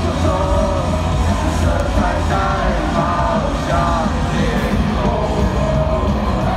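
Live punk-rock band playing through the stadium's loudspeakers, with loud shouted singing of a wordless 'oh-oh-oh' chorus over it and a steady beat, echoing around the ballpark.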